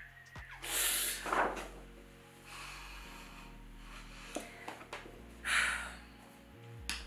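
A woman's breath sounds: two loud, brief breaths, one about a second in and another near six seconds, with a few faint handling clicks between.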